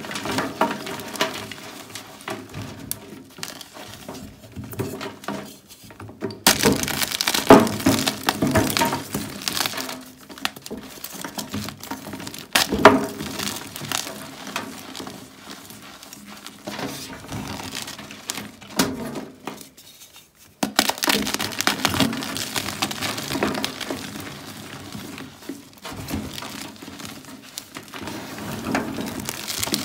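Block of Ader gym chalk, left out for days to harden, crushed by hand: a run of irregular dry crunches and crackles as the hard block breaks and crumbles into powder, with sharper snaps here and there and a brief pause about two-thirds of the way through.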